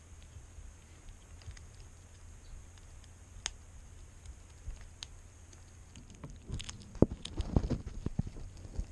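Ferret chewing and crunching raw pigeon bone, heard as faint scattered clicks with two sharper cracks. Near the end a flurry of loud knocks and thumps breaks in as the camera is bumped and shifted.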